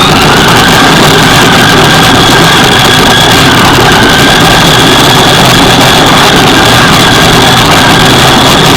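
RC monster truck's motor and drivetrain running, a loud, steady noise with a high whine held at an even pitch.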